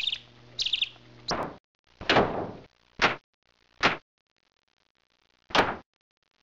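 Two short bird chirps in the first second, then a string of five separate sharp, noisy hits, each a brief falling swish, spaced about a second apart with a silent gap near the end.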